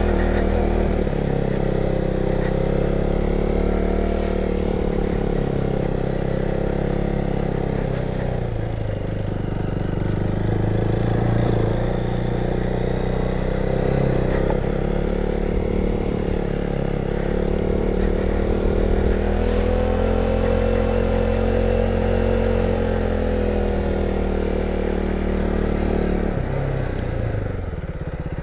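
KTM 390 Duke's single-cylinder engine running as the motorcycle rides a dirt and gravel track, its pitch rising and falling with the throttle. Near the end it drops to a lower, steady note.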